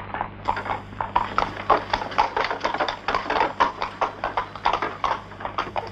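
A horse's hooves clip-clop in a steady rhythm of about four or five strikes a second as it pulls a cart.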